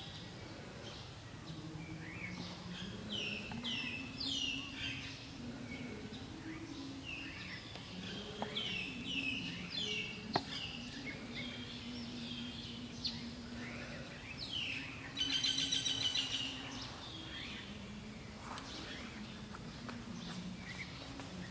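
Small birds chirping: many short, repeated falling chirps, with a fast trill about fifteen seconds in, over a faint low hum.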